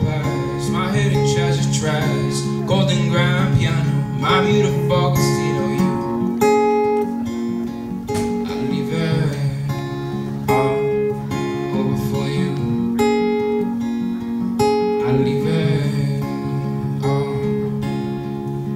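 Black cutaway acoustic guitar strummed in steady chords, with a young man singing over it at the microphone: a laid-back, beachy song.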